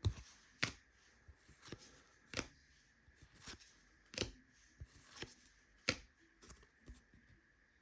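Trading cards being handled and flipped through, with about ten short, sharp clicks as cards are slid and set down, roughly one every half second to a second.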